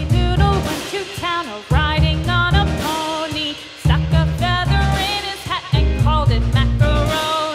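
Background music: a children's song, a melody over a steady bass beat.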